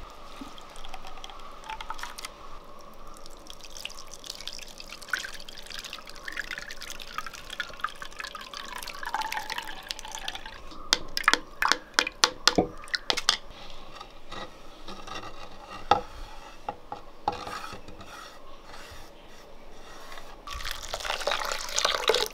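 Grated coconut squeezed by hand in water in a clay bowl, the coconut milk squishing and dripping. Around the middle there is a quick run of sharp taps as the milk is strained through a plastic strainer. Near the end comes a louder rush of water poured onto the grated coconut.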